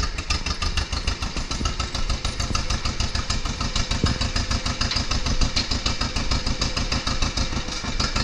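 1955 John Deere 40S tractor's two-cylinder engine running steadily at low speed, with a rapid, even beat of exhaust pulses as the tractor creeps forward.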